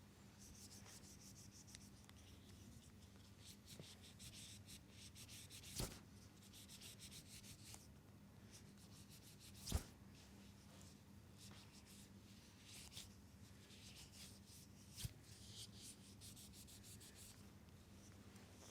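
Faint rubbing of hands massaging oiled skin, with three short sharp knocks or snaps about six, ten and fifteen seconds in, the middle one loudest.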